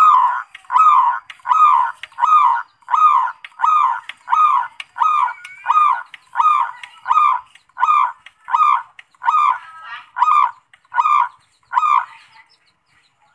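Zebra dove (perkutut) calling: a steady run of about seventeen short, evenly spaced cooing notes, roughly one every 0.7 seconds, that stops about twelve seconds in.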